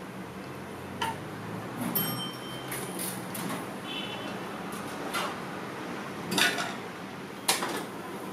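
A metal spoon clinking against a blue-and-white porcelain soup bowl several times while eating, one clink ringing briefly, over a steady background hum.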